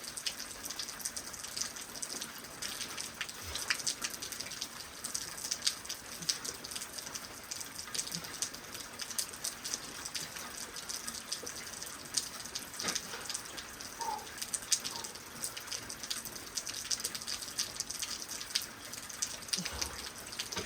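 Steady rain falling, with many separate drops ticking sharply close by.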